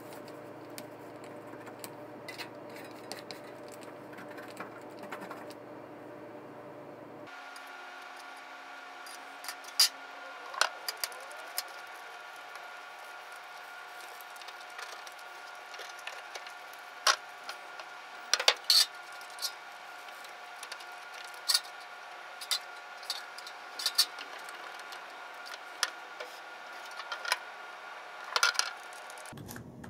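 Scattered light clicks and knocks from a paint roller and a metal roller tray being handled while contact adhesive is rolled on, over a steady hum that changes abruptly about seven seconds in. Near the end, adhesive is poured from a metal can into the tray.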